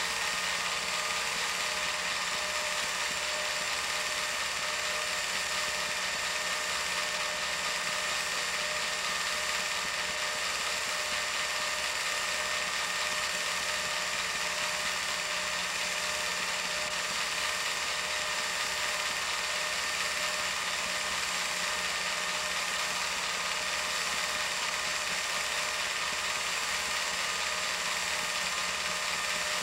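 A film projector running: a steady, unchanging mechanical whir and clatter from its film-advance mechanism.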